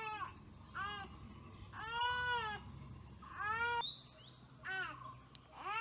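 A cat meowing repeatedly, about five meows in a row, some short and some drawn out.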